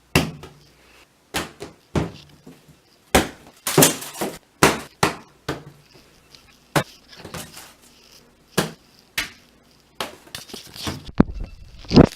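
Squishy toys being dropped into a bathtub one after another: well over a dozen irregular knocks and thuds.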